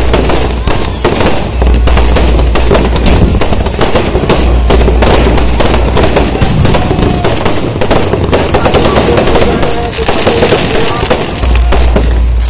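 Firecrackers and fireworks going off in a rapid, continuous crackle of bangs, many a second like machine-gun fire. The bangs thin out somewhat towards the end.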